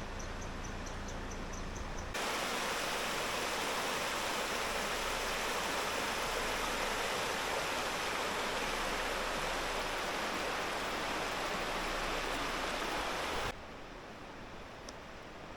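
Mountain stream rapids rushing steadily. The water cuts in abruptly about two seconds in and cuts off abruptly near the end. Before it, a quieter stretch with a rapid, evenly repeated high chirping.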